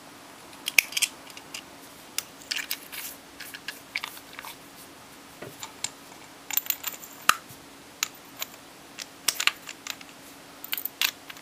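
Irregular small clicks and taps of a Maglite AA flashlight being handled and put back together, its metal barrel and small parts knocking and clicking against each other.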